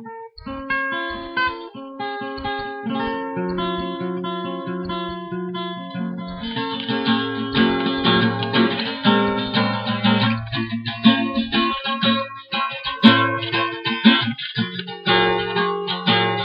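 Solo acoustic guitar: single picked notes and chord tones for the first six seconds or so, then fuller, louder strumming for the rest.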